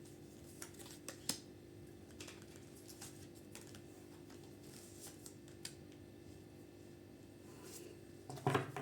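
Tarot cards being handled and laid down: faint, scattered soft clicks and taps, the clearest about a second in, over a low steady hum.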